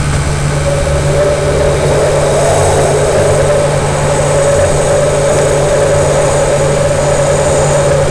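A loud, steady droning noise: a low hum with a higher held tone over a harsh hiss, unbroken and without speech.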